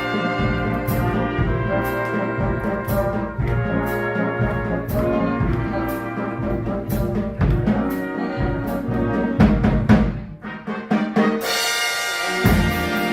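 Big band playing, with its trumpet and trombone sections over drums and sharp drum strokes. About ten seconds in the band drops out briefly, then comes back in on a loud held chord with a cymbal wash.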